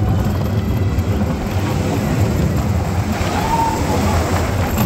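Mine-train roller coaster cars running along the track at speed, a loud steady low rumble.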